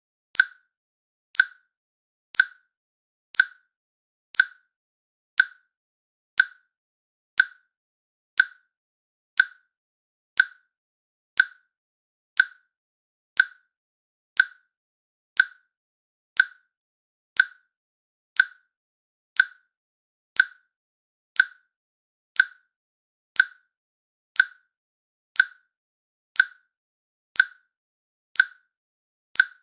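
Countdown timer's click sound effect ticking off the seconds: one short, sharp click every second, evenly spaced, each dying away quickly.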